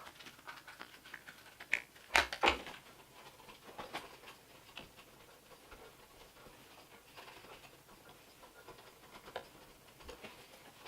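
Light scrapes, rubbing and scattered small clicks of hands cleaning debris out of a handheld leaf blower's plastic housing, with two sharper knocks about two seconds in.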